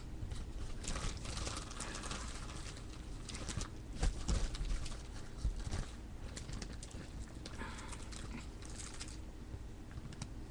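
Rustling and crinkling of loose pipe tobacco and its packaging being handled while a pipe is packed, in scattered bursts, with a few dull knocks about halfway through.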